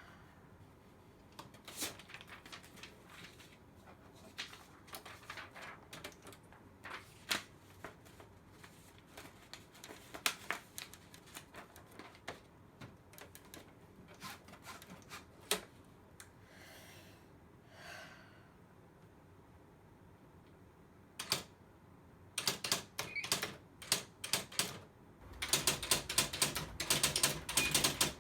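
Mechanical typewriter keys being struck: slow, irregular single keystrokes, then fast continuous typing near the end. A low steady hum joins under the typing near the end.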